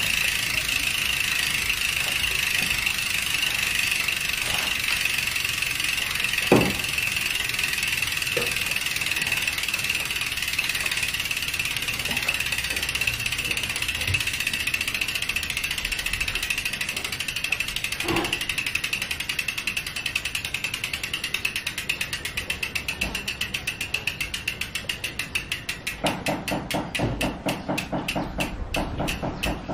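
Raze freehub of a Thrill Vanquish Elite rear wheel ticking as the wheel coasts on its own: the pawls make a fast, steady buzz that slows into separate clicks as the wheel spins down. A single knock comes about six seconds in.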